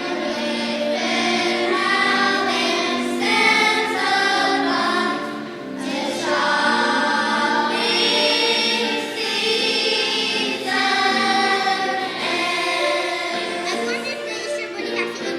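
Elementary school children's choir singing a song together, with sustained sung notes.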